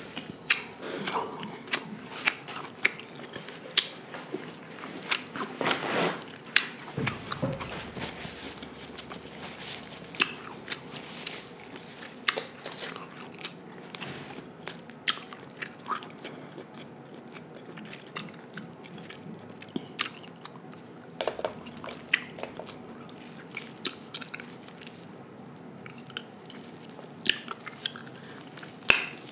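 Close-miked eating sounds: chewing and biting boiled king crab meat, with many short, sharp clicks and cracks at irregular intervals.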